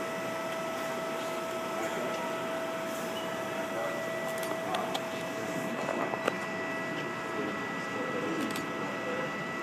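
Steady mechanical hum with a constant high whine, with faint murmured voices at times and a single sharp click about six seconds in.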